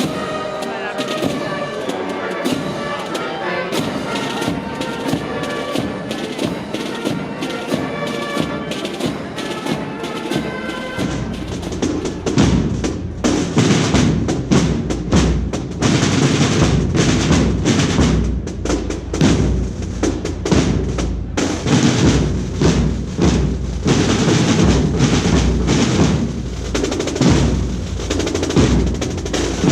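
Procession band music: wind instruments playing a melody, then from about 11 seconds in, heavy drumming with snare rolls and deep drum beats takes over.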